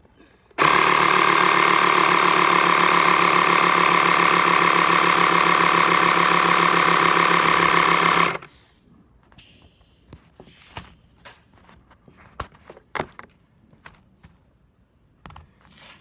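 Small electric air compressor (tire inflator) running steadily for about eight seconds, pumping up a bicycle inner tube to check it for leaks, then switching off abruptly. Light clicks and taps of handling follow.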